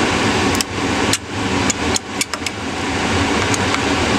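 Several irregular light clicks and taps of a small screwdriver against metal parts inside an opened hard drive, over a steady background hum of room noise.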